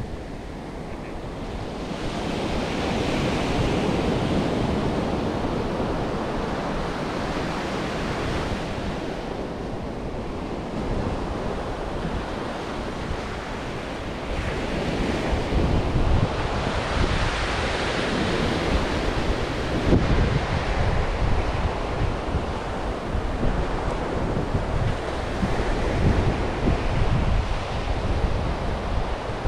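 Ocean surf breaking and washing up a sandy beach, swelling and easing with each wave, with wind buffeting the microphone.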